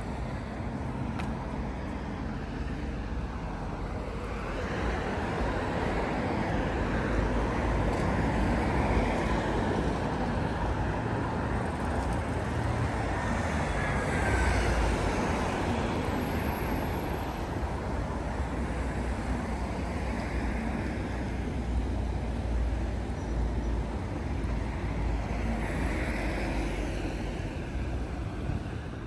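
Road traffic noise: a steady low rumble of motor vehicles, swelling and easing as they pass.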